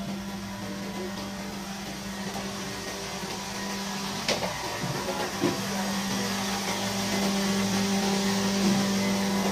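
A steady machine hum with a sharp click about four seconds in.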